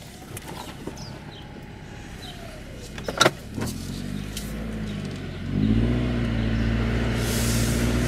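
Subaru Crosstrek's flat-four engine running in the cabin, quiet at first, with a sharp click about three seconds in; from about halfway the engine note grows louder and holds a steady drone as the car pulls away. No seat-belt chime sounds, because the chime has been disabled.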